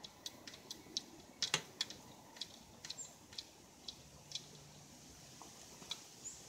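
Light, irregular clicks and ticks from a homemade recumbent trike's front suspension and steel frame as a foot presses down on the coil-over shock, loudest about a second and a half in.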